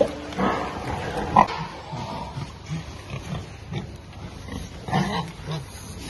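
Pigs grunting while feeding at a trough: a run of short low grunts in quick succession, with a louder, sharper one about a second and a half in and another near five seconds.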